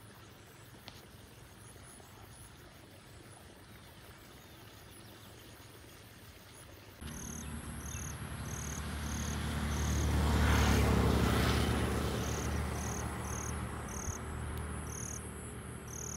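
Faint outdoor ambience, then about seven seconds in insects start chirping in an even pulsing rhythm of about two chirps a second. Under them a low vehicle rumble swells to a peak and fades, as a vehicle passes.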